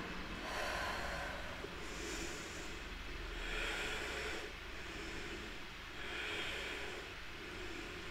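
A person breathing audibly and slowly while holding a yoga forward fold. There are about four soft rushes of air, each lasting about a second, with a pause between breaths.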